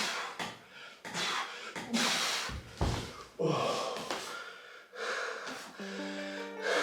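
A man breathing hard through a long set of push-ups, with a series of heavy, noisy breaths roughly once a second, the sign of heavy exertion.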